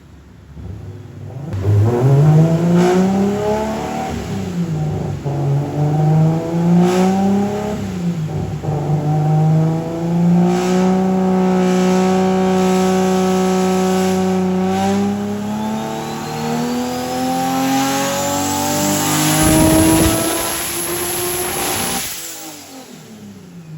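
Turbocharged Nissan RB26 straight-six in an R32 Skyline GT-R running under load on a dyno: the revs climb, waver, hold steady, then climb again before the engine drops off near the end. A high whine rises toward the end, and the engine spits now and then, which the crew put down to the spark plugs.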